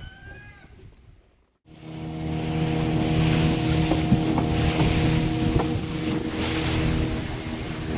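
Motorboat engine running at a steady speed, with wind and water noise over it. It cuts in suddenly about a second and a half in, after a short silence, and a few small knocks sound over it.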